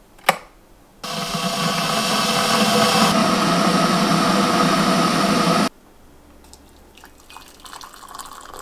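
An electric kettle clicks on at its switch, then the water in it heats toward a boil with a loud, steady rushing that starts and stops abruptly. Near the end, a fainter sound of hot water being poured from the kettle into a mug.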